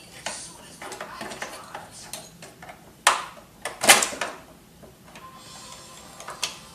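Plastic and metal parts of an HP F2410 all-in-one printer clicking, knocking and scraping as it is taken apart by hand. The two loudest knocks come about three and four seconds in.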